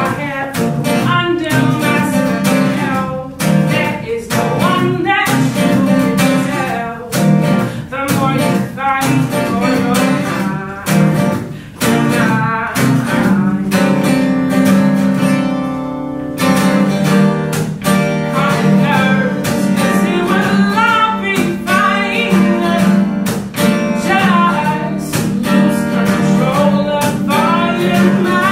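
Solo acoustic guitar strummed and picked while a singer sings over it. The guitar sustains on its own for a couple of seconds about halfway through, before the voice comes back in.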